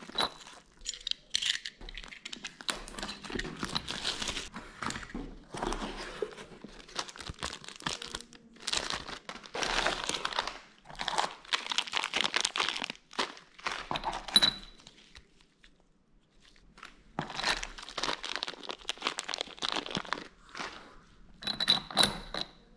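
Plastic shrink-wrap and bags crinkling and tearing as a parts box is unwrapped and handled, along with cardboard packaging being opened. It comes in irregular bursts with a quiet pause about two-thirds of the way through.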